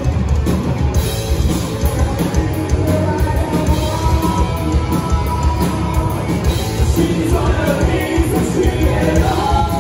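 Live rock band playing loudly on stage, with drums, electric guitars and keytar, and a vocalist singing over them.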